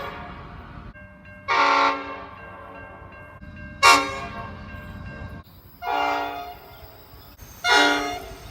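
Train air horns sounding four short blasts, each about a second long, starting suddenly and fading out in an echo. Each blast is a chord of several notes sounded together.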